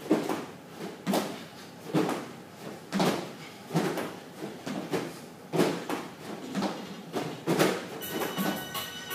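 Rhythmic back-and-forth sliding or scraping strokes, a strong one about once a second with a weaker one between. Music comes in near the end.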